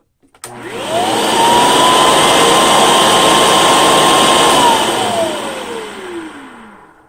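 1995 Hoover Commercial C1125 upright vacuum's motor switched on, its whine rising quickly to full speed, running steadily for about three seconds, then switched off and spinning down with a falling whine.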